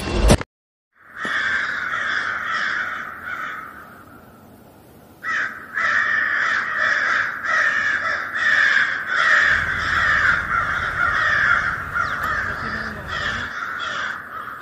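Crows cawing over and over in a dense, harsh run of calls. The calls fade out about three to four seconds in and return about a second later. At the very start there is a short loud sound, then a moment of silence.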